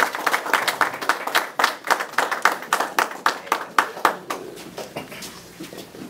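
A small group applauding by hand, the clapping thinning out and dying away about four to five seconds in.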